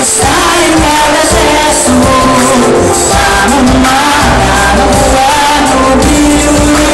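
Live pop band with a female lead singer, drums and guitar, played loud through PA speakers and recorded from within the audience.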